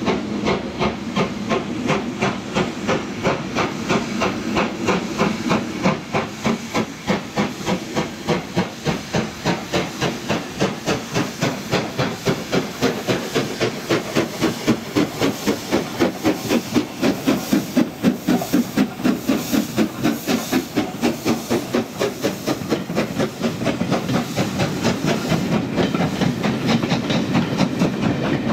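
Steam locomotive working a train, its exhaust chuffing in a steady rhythm of about three beats a second over a hiss of steam.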